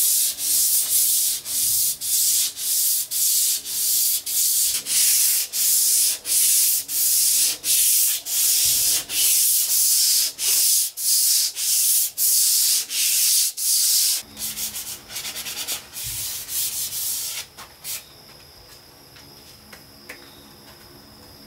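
Sandpaper rubbed by hand over a large wooden tabletop: a steady rhythm of hissy back-and-forth strokes, about one and a half a second, that turn quicker and quieter after about fourteen seconds and stop a few seconds later, leaving a faint steady high hum.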